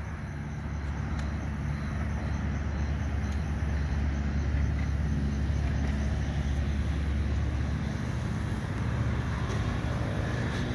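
A steady low engine hum with a little background noise; its pitch shifts slightly about nine seconds in.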